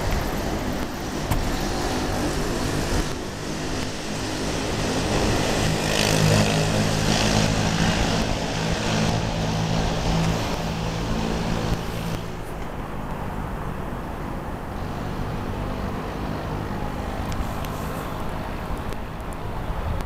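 Road traffic noise. A vehicle's engine hum swells to its loudest about six to nine seconds in and drops away at about twelve seconds, leaving a steadier, quieter traffic hum.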